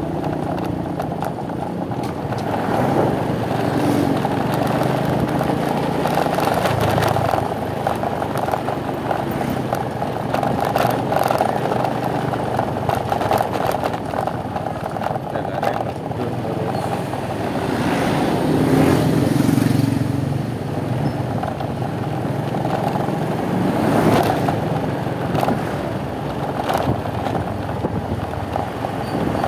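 Motorcycle ride: the bike's engine running steadily under road and wind noise, with other traffic swelling past about two-thirds of the way through.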